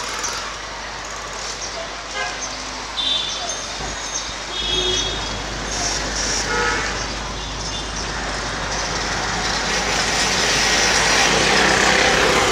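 Street traffic running steadily, with vehicle horns tooting a few short times in the first half and a vehicle passing louder near the end.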